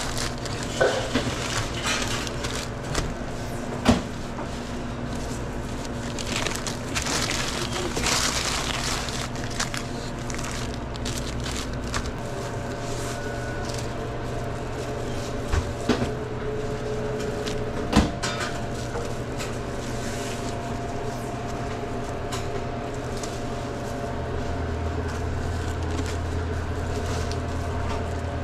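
Work sounds behind a sandwich-shop counter: rustling and crinkling, as of plastic or paper being handled, with a few sharp knocks, over a steady machine hum.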